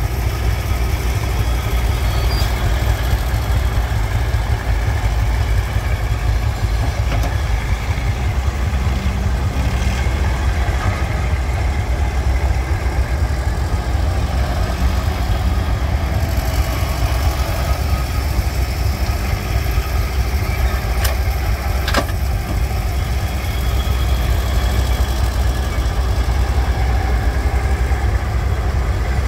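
Fuchs 301 cable excavator's engine running steadily under load as the machine swings and digs sand, with a couple of sharp clicks a little over two thirds of the way through.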